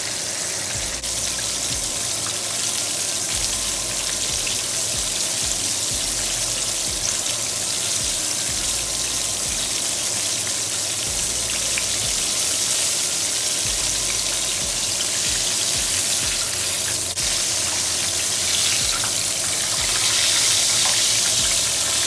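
Battered cube steak deep-frying in hot oil in a skillet at about 350 degrees: a steady sizzle, a little louder near the end.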